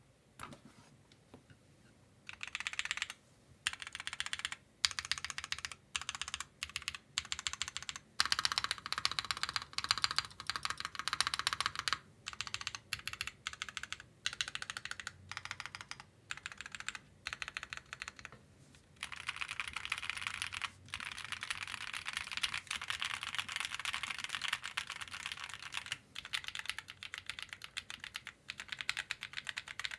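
Mechanical keyboard fitted with GMK doubleshot ABS keycaps being typed on in a typing test. Quick runs of keystrokes come in bursts with short pauses, starting about two seconds in, with a longer unbroken run of fast typing past the middle.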